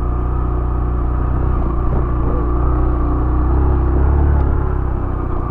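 Yamaha YBR 125G motorcycle's single-cylinder four-stroke engine running steadily as the bike is ridden, a low continuous rumble.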